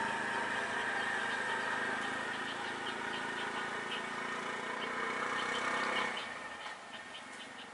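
Vehicle engine idling steadily, fading away about six seconds in.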